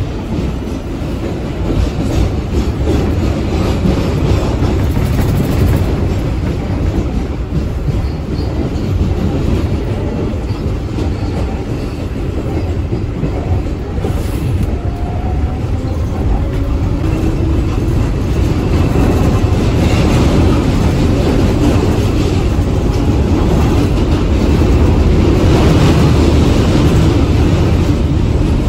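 Kawasaki R142A subway car running on the rails, heard from inside the car: a steady rumble of wheels on track with clickety-clack, growing louder over the second half.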